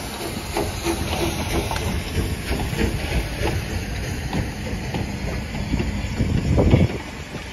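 Steam locomotive moving slowly past, hissing steam from its open cylinder drain cocks with repeated exhaust beats. Its coaches then roll by over the rail joints, with a louder low rumble near the end.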